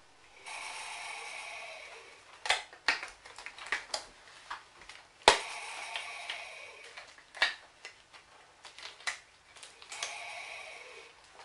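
Breathing through an anaesthesia face mask and its breathing circuit: three long breaths about five seconds apart, with sharp clicks and snaps between them.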